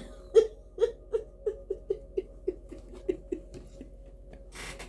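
A woman laughing softly to herself in a string of short, fading "ha" pulses, then drawing a breath near the end.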